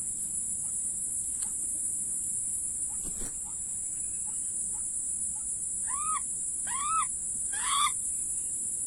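A bird gives three short, harsh calls, each rising and falling in pitch and a little louder than the last, near the end. A steady high-pitched drone runs underneath.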